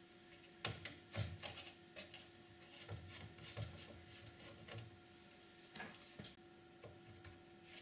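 Irregular clicks and light knocks of hands handling parts and cables on a Power Mac G4 motherboard inside its metal case, in clusters about a second in, around three seconds and around six seconds.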